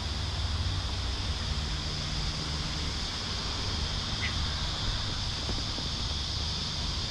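Steady hiss of rain with a low rumble underneath, and one short bird chirp about four seconds in.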